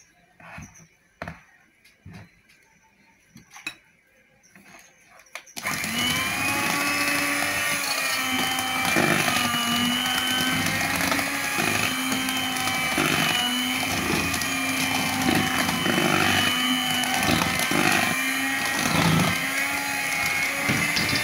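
A few light knocks, then about five seconds in an electric hand mixer starts and runs steadily, its beaters working through cake batter in a bowl.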